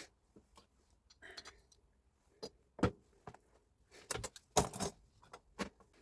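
Metal parts and hand tools being handled: a string of sharp clinks and knocks with a brief rustle, the loudest knocks in the second half.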